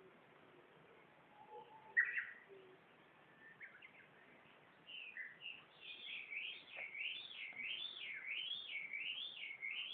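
Wild birds calling: a short sharp high call about two seconds in, then from about five seconds a loud warbling song that swoops up and down in pitch about twice a second.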